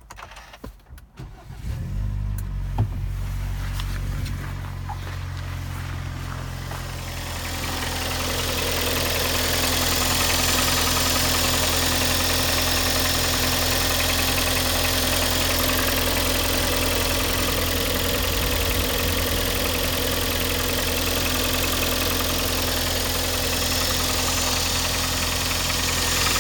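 Kia Sportage's 2.0-litre G4KD petrol engine on a cold start: it catches about two seconds in and settles to a steady idle. From about seven seconds in, a loud metallic chatter rises over the idle and keeps on. The owner takes the chatter for scoring in the cylinders.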